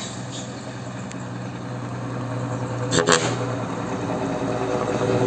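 Heavy cargo truck's diesel engine running as it approaches, growing steadily louder. A short, sharp double burst cuts in about three seconds in.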